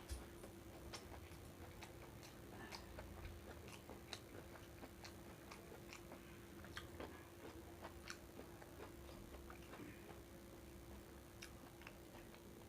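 Quiet eating of fried rice: faint chewing with scattered small clicks at uneven intervals, over a steady faint hum.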